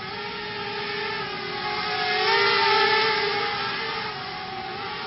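FPV racing quadcopter's Emax 2205 2300KV brushless motors and 5-inch three-blade props buzzing in flight. The buzz swells louder and slightly higher about halfway through, then eases back down.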